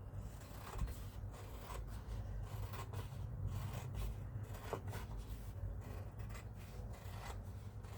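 Scissors cutting a sheet of peel-and-stick wallpaper: irregular snips and paper rustling, over a low steady hum.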